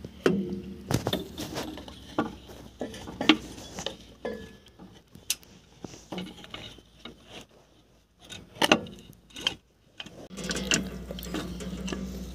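Irregular metal clinks, knocks and scrapes as an engine air compressor and its drive gear are worked by hand into the timing case of a crane's diesel engine. A steady low hum sets in near the end.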